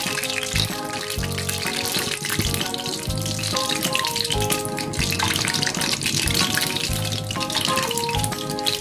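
Background music with a plucked-sounding melody and bass, over a steady sizzling hiss of food frying in a miniature pan.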